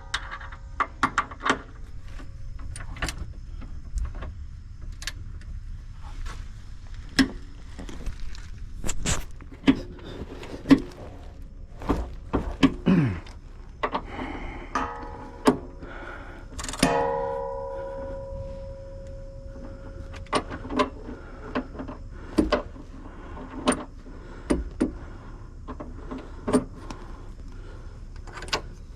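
Hand tools working on car suspension bolts: scattered clicks, knocks and clanks of wrenches on metal, with a struck metal part ringing out and dying away just past the middle.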